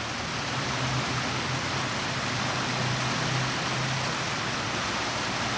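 Creek running high and fast, a steady rushing of water with a low hum underneath.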